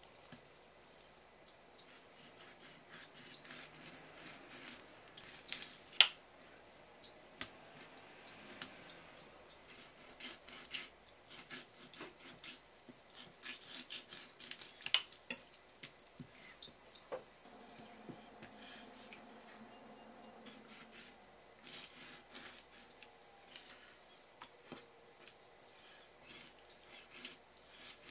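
A kitchen knife taps and scrapes on a wooden cutting board as raw pufferfish pieces are trimmed, with soft wet handling sounds from the fish. The clicks are scattered, and two sharper knocks stand out, about six seconds in and again around fifteen seconds.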